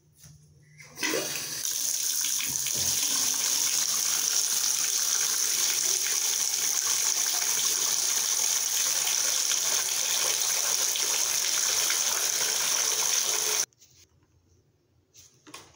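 Bathtub spout running full, water splashing into the tub and down the drain as a steady rush. It starts about a second in and cuts off abruptly near the end.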